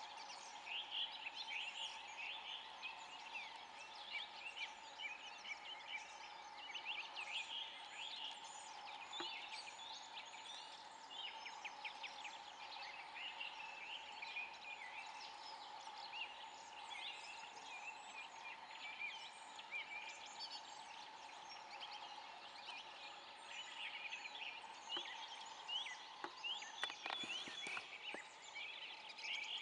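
Wetland ambience: a steady distant chorus with many short chirping calls throughout. Near the end, a splash and sloshing water as a Eurasian beaver slips into the creek and swims off.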